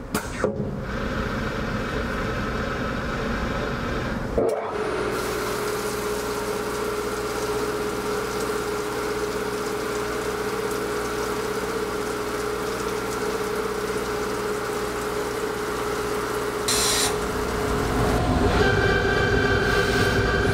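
XSharp tool-sharpening grinder running its automatic sharpening cycle on a punch-press die: the grinding-wheel spindle and coolant spray run steadily. After a brief break about four seconds in, a steady hum sets in, and near the end the sound shifts to a higher, louder whine.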